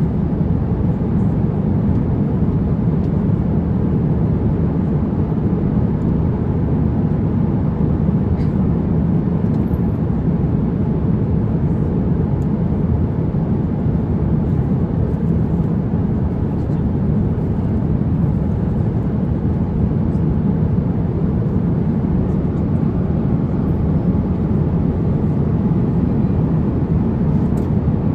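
Steady cabin noise of an Airbus A350-900 airliner in flight: an even, low rush of airflow and engines that does not change.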